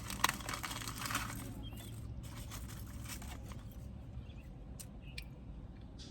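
Close-up chewing of crunchy food: dense crunching for the first second or so, then quieter scattered mouth clicks as the chewing goes on.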